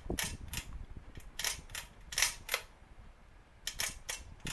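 A 44-inch Hampton Bay Cameron II ceiling fan switched to high speed, with a string of light, sharp clicks at uneven spacing, about two or three a second.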